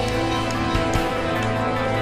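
Soundtrack music made of steady held notes.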